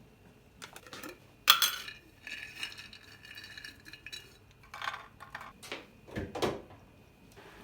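Dishes and cutlery clinking and clattering as they are handled: a sharp clink with a short ring about one and a half seconds in, then a run of lighter knocks and clinks.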